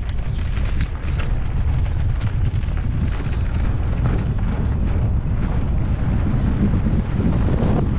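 Wind buffeting the microphone as a mountain e-bike rolls quickly down a dirt forest trail: a steady low rumble with the rattle and crunch of the tyres over the rough ground.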